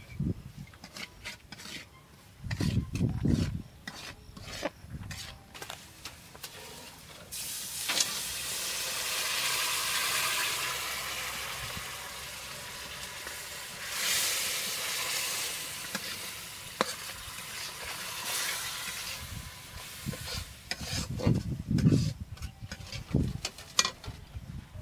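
A metal spoon scrapes and taps round an iron karahi while onions and spices fry in hot oil. About seven seconds in, a loud sizzle starts suddenly. It swells again around fourteen seconds and dies down near twenty seconds.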